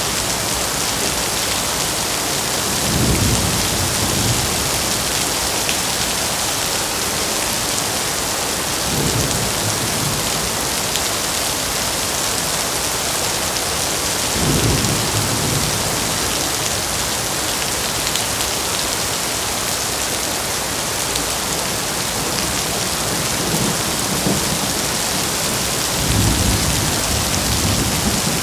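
Heavy rain falling steadily in a dense hiss, with low rumbles of thunder rolling in four times.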